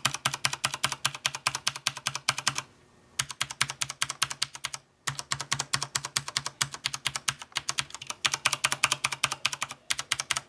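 Fast typing on a Corsair Strafe RGB mechanical keyboard, the keys bottoming out in a rapid run of clicks with brief breaks about three and five seconds in. A faint steady low hum sits underneath.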